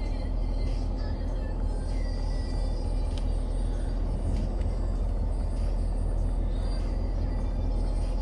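Steady idle of a Ford Raptor SVT's 6.2-litre V8, a constant low rumble heard from inside the cab, with a faint click about three seconds in.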